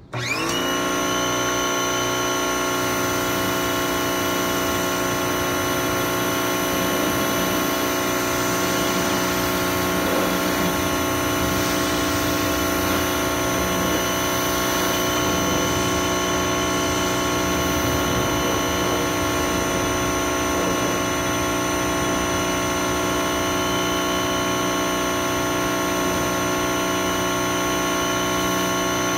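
Electric pressure washer starting up as the trigger is pulled: its motor and pump wind up within a split second, then run at a steady pitch over the hiss of the water jet.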